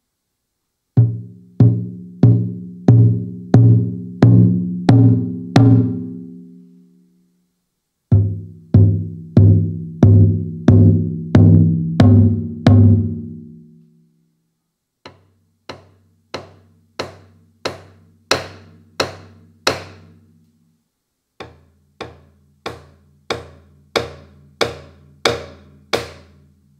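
Roland TAIKO-1 electronic taiko playing its Nagado Large (barrel-shaped nagado-daiko) sounds: four runs of about nine evenly spaced strikes, roughly three every two seconds. The first two runs are loud, deep drum-head hits that ring and fade. The last two are quieter, sharper rim (ka) hits with a lighter low ring.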